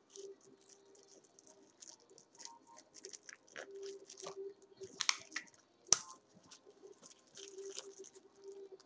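Thin plastic wrapping crinkling and rustling in the hands as a pair of earphones is unwrapped, in many short irregular crackles, with one sharp click about six seconds in.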